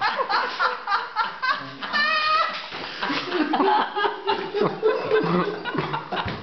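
A group of people laughing together: quick bursts of laughter at first, a high, wavering laugh about two seconds in, then more broken laughing voices.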